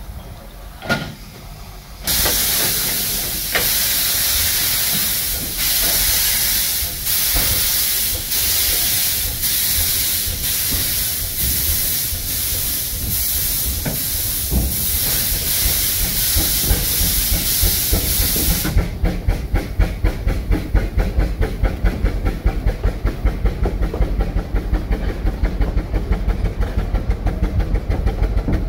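Narrow-gauge steam locomotive pulling away. About two seconds in, the cylinder drain cocks start blowing a loud steam hiss that pulses with the slow exhaust beats. The hiss cuts off suddenly past halfway, leaving a fast even beat of exhaust chuffs and wheels on the rails.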